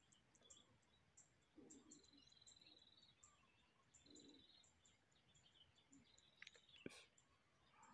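Near silence in woodland: faint bird chirps repeat throughout, with two short rapid trills, and a single sharp click near the end.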